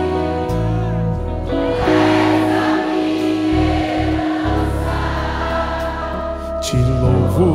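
Live band playing a slow worship song, with sustained chords, electric guitar and bass under choir-like singing. A wavering sung note comes in near the end.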